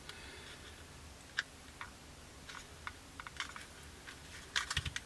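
Light, scattered clicks and taps of hard plastic being handled: a plastic model-kit fuselage turned in the hands and a glue bottle on the cutting mat. A louder cluster of clicks with a dull knock comes near the end.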